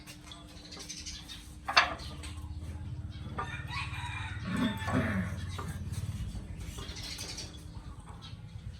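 A rooster crowing once, a long call lasting about two and a half seconds, starting about three and a half seconds in. A sharp knock comes about two seconds in, and a steady low hum runs underneath.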